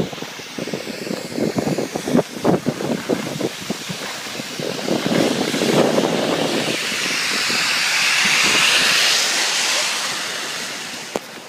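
Skis scraping and chattering over packed snow, with wind buffeting the microphone while skiing downhill. In the second half a loud broad hiss swells and then fades.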